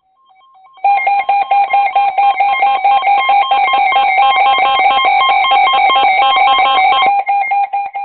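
Emergency alert tone: loud rapid electronic beeping that steps between a few fixed pitches, several beeps a second. It sounds faintly at first, comes in at full level about a second in and fades out near the end, ahead of a flash flood warning.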